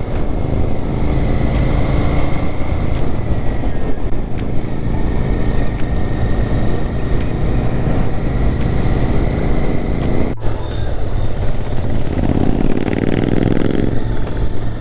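Royal Enfield Interceptor 650's parallel-twin engine running under way, mixed with heavy wind rush on the helmet-mounted microphone. The revs rise briefly near the end.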